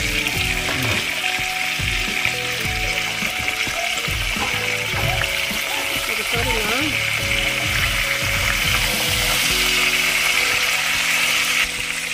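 Whole small eggplants frying in a pan of hot oil: a steady, dense sizzle that cuts off sharply near the end, with background music playing over it.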